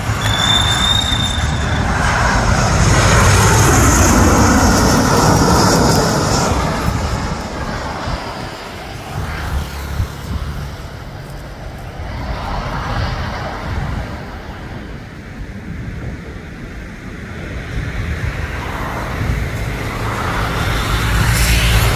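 Jet engines of a Boeing C-40 Clipper (a 737-700 with two CFM56-7 turbofans) running loud as it passes low overhead on final approach, the pitch falling as it goes by. The noise then settles into a steadier, quieter roar as the jet heads down to the runway. It swells again near the end as the aircraft touches down.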